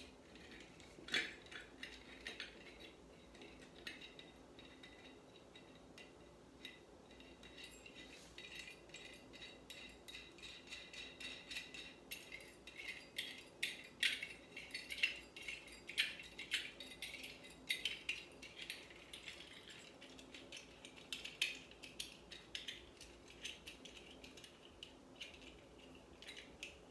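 Small metal lamp parts, a brass mason-jar lid adapter and socket, being handled and fitted back together: a long run of light clicks, clinks and rattles, busiest in the middle stretch.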